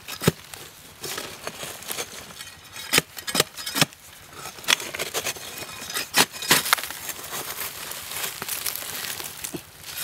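A digging tool chopping into a hard, dry earthen termite mound: irregular sharp strikes, with crumbling and scattering dirt between them.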